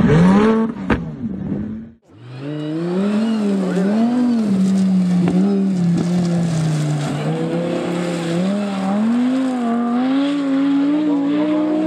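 Briefly, a Lamborghini Aventador's V12 revving up as it slides on snow; then, after a cut, a Lamborghini Gallardo rally car's V10 engine running hard, its revs rising and falling again and again through the corners of a rally stage.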